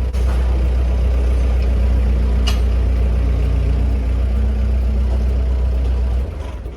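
An engine idling with a steady low rumble, then dropping away about six seconds in. There is a single short click about two and a half seconds in.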